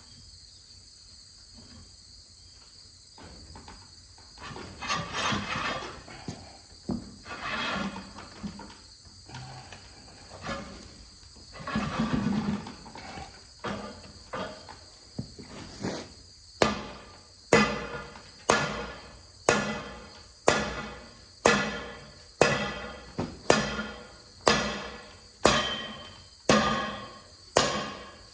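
Scattered light metal knocks and scrapes, then a steady series of loud ringing hammer blows on a steel rod, about one a second, driving an old bearing out of a baler's bearing housing.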